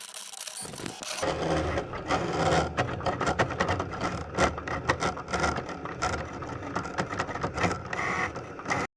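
Close handling noise: dense rubbing and scraping with many small clicks and a low rumble, starting about half a second in and cutting off abruptly just before the end.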